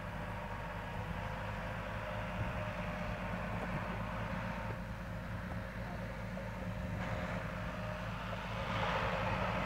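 Farm tractor engine running steadily under load while pulling a disc harrow through the soil, a little louder near the end.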